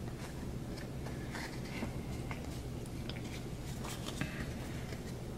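Faint rustles and light taps of trading cards being handled and separated by hand, a few scattered ticks, over a low steady hum.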